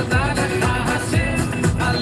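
Pop music with a steady beat and a sung melody.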